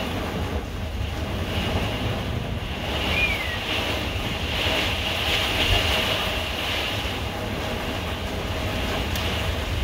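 Severe thunderstorm heard from inside a fifth-wheel camper: wind-driven heavy rain beating on the camper and gusting wind, with a steady low rumble under it.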